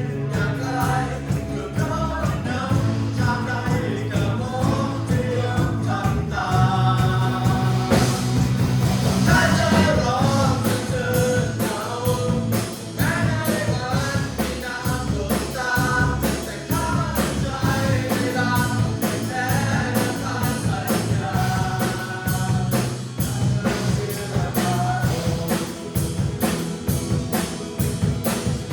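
Worship band playing a praise song with sung vocals over bass and a steady drum beat.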